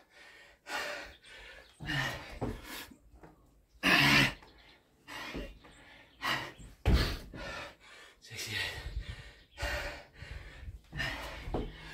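A man breathing hard from exertion during Navy Seal burpees, with loud gasping breaths about once a second.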